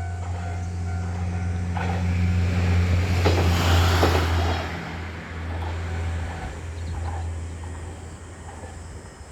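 Amagi Railway diesel railcar going past a level crossing. The engine's low steady drone and the rail noise grow louder to a peak about three to four seconds in, then fade away. For the first couple of seconds the crossing alarm rings in a steady beat.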